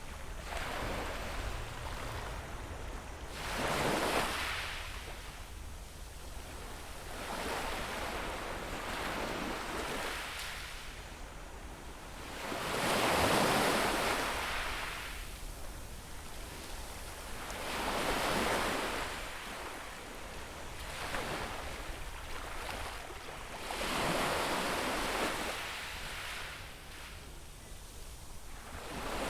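Small waves breaking on a beach shore, one surge of surf every few seconds, each swelling to a wash and fading away.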